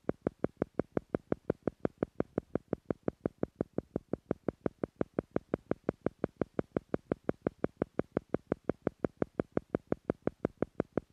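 Theta-frequency pulse track: identical short pitched beats repeating steadily about five times a second, like a fast metronome, meant to slow brainwaves toward the theta level.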